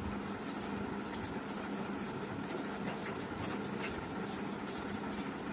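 Scissors cutting through cloth in a run of short, sharp snips, over a steady background hum.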